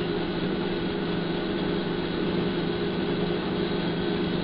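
A steady machine hum with a few fixed low tones, holding the same level throughout with no other events.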